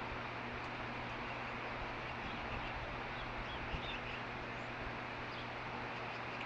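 Steady rumble and hiss of a passing freight train, with a few faint, short, high chirps from an osprey between about two and five seconds in.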